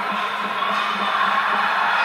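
Steady crowd hubbub in a hockey rink with faint music underneath.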